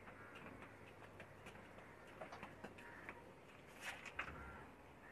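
Near silence with faint scattered clicks and taps, a few sharper ones about four seconds in, as the lure's hooks are worked out of a small giant trevally.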